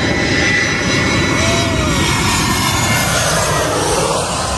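Jet airliner passing low overhead on its landing approach: loud, steady jet engine noise with a faint high whine.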